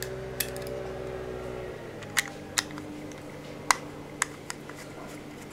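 Sharp clicks and taps of hard plastic and a small screwdriver as a Hyundai Santa Fe's steering-wheel cruise-control switch unit is handled and screwed back together. About six louder clicks are spread through, and a low hum in the first second and a half fades out.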